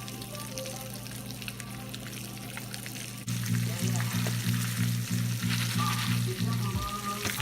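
Stovetop foil-pan popcorn kit sizzling on the stove as the oil heats, before the kernels start popping, a fine steady crackle. A low hum runs underneath and gets louder about three seconds in, pulsing about three times a second.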